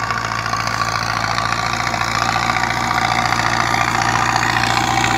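Tractor engine running steadily with a fast, even throb, growing a little louder.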